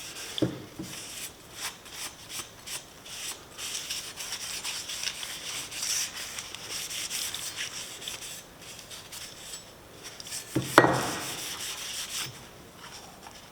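A rag rubbing linseed oil over the steel head of a pruning chisel in uneven wiping strokes. A single sharp knock comes about eleven seconds in.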